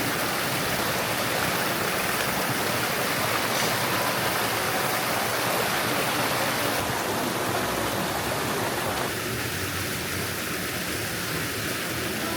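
Steady rush of running water, a stream or waterfall spilling into a forest pond, easing a little about two-thirds of the way through.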